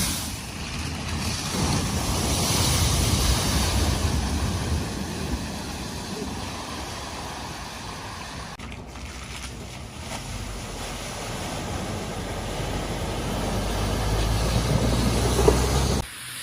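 Vehicles driving through a flooded ford: rushing, splashing water with a low engine rumble that swells and fades twice, then cuts off suddenly near the end.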